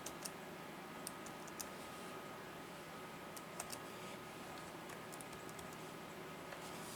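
Toshiba Satellite C655 laptop keys (Tab and arrow keys) pressed one at a time: faint separate clicks in small clusters of two or three, with pauses of a second or two between them.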